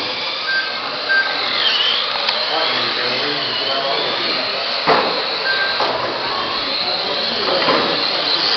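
Radio-controlled mini cars racing, their small electric motors whining and rising and falling in pitch as the cars speed up and slow down. Three short beeps and a few sharp knocks come through along the way.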